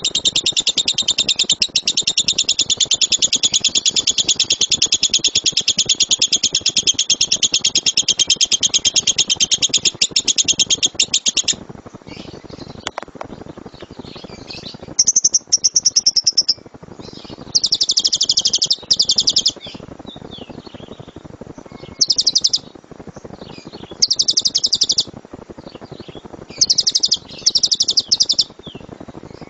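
Lovebird singing a long, rapid-fire chatter of high notes for about eleven seconds, then breaking into several shorter bursts of a second or so with brief pauses between.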